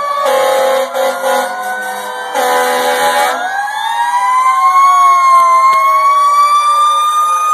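Several fire-engine sirens wailing, their pitches rising and falling over one another. Two blasts of a fire truck's air horn, each about a second long, come in the first half.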